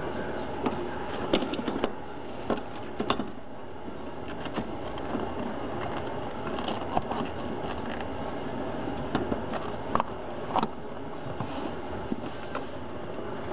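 A car brake pedal and its rubber gaiter being handled and test-fitted in the footwell: scattered light clicks and knocks of the pedal being worked into place, a few of them bunched together about a second and a half in, over a steady background hum.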